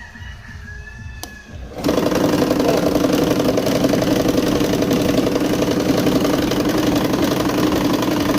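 Homemade scroll saw driven by a Sanyo electric motor, switched on about two seconds in and then running steadily with a loud, even mechanical clatter.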